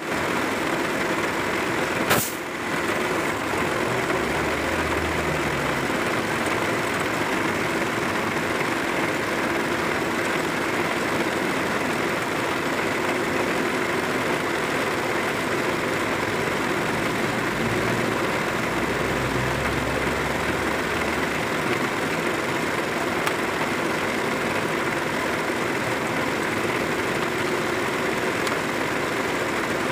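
Heavy diesel tow-truck engine running steadily close by while its cable pulls in a wrecked container truck, with two brief deeper surges in the engine note. A single sharp knock sounds about two seconds in.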